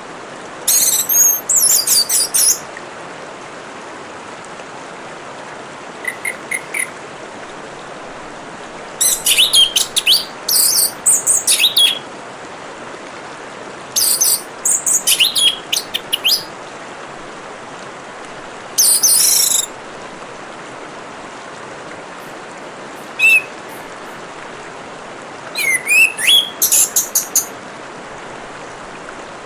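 Orange-headed thrush singing in short bursts of rapid, varied, high-pitched phrases separated by pauses of a few seconds, over a steady hiss of trickling water.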